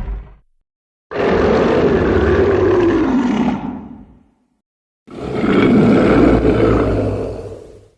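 Godzilla-style monster roar sound effects: the end of one roar, then two long roars of about three seconds each with silence between them, the first sinking in pitch.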